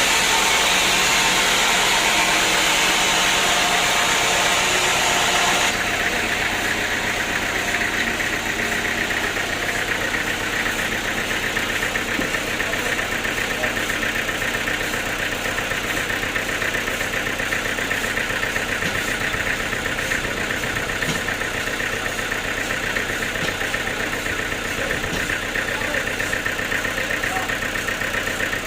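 Sawmill machinery running steadily, with an engine-like hum and a fast fine rattle. A louder hissing noise cuts off abruptly about six seconds in.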